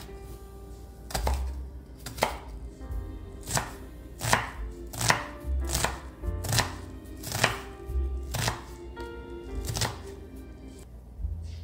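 Kitchen knife dicing an onion on a wooden cutting board: steady, unhurried knocks of the blade hitting the board, a little under one a second.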